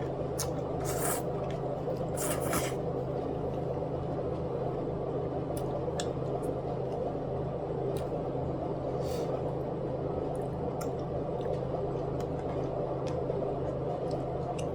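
A person eating Korean braised chicken (jjimdak): scattered short, wet squishes and clicks of chewing and utensils over a steady low household hum.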